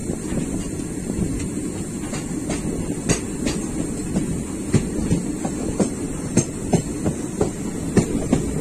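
Express passenger train running at speed, heard from the coach's open door: a steady rumble of the wheels on the track with irregular sharp clicks and knocks from the rail joints, coming more often in the second half.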